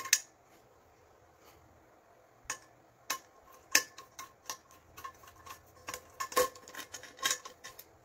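Hand screwdriver clicking and scraping against the screw of a pot's loop handle as it is driven in, with light metal knocks that ring faintly off the pot. The clicks come irregularly, a few at the start and then many from about two and a half seconds in.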